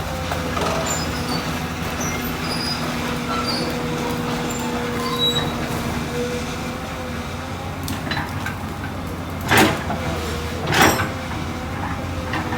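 Komatsu PC200 excavator's diesel engine running steadily, with two loud sharp cracks or knocks a little over a second apart, about three-quarters of the way in.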